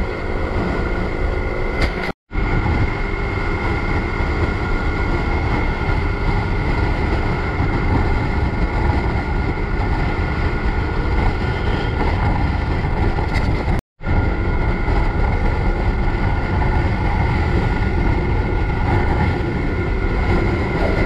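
Steady riding noise from a moving motorcycle: wind rushing over the microphone with engine and road noise underneath, cutting out abruptly for a moment twice.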